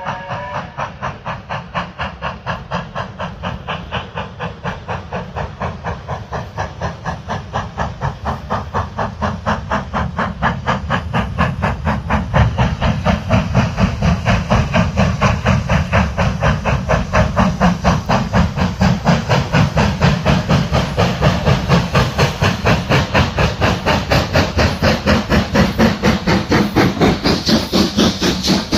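BR Standard Class 4MT 4-6-0 steam locomotive 75014 Braveheart working a train, its exhaust beating in a steady, even rhythm that grows louder as it approaches. Near the end it passes close by with a loud hiss of steam.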